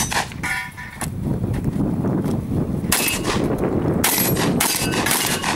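A shotgun fired in a fast string of about six shots, unevenly spaced, with a gap of about two seconds after the second shot. The first shot is followed by a short ringing tone.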